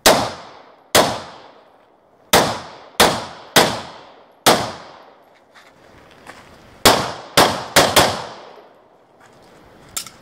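Handgun fired about ten times, single shots and quick pairs, each ringing on briefly after the crack, with a pause of about two seconds midway before a fast string of four.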